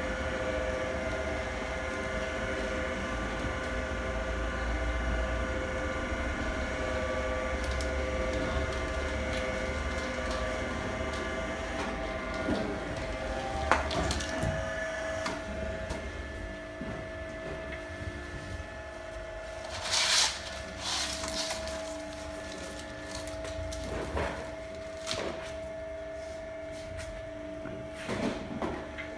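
Electric facing tool of an HDPE pipe butt fusion machine running with a steady geared whine as its blades shave the pipe ends; the pitch of the whine shifts once around the middle. Several sharp knocks and clatters come in the second half.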